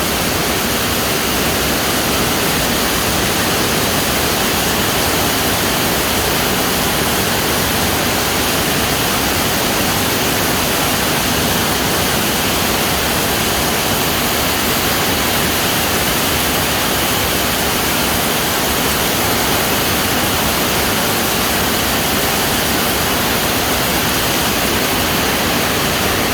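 Heavy rain pouring down steadily, a loud even hiss with no break.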